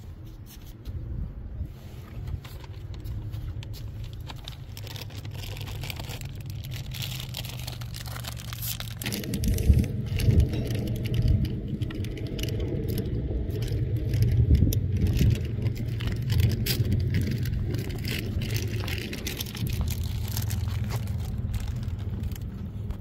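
Wind buffeting the microphone as a gusty low rumble, which grows stronger about nine seconds in, with light clicks and rattles over it.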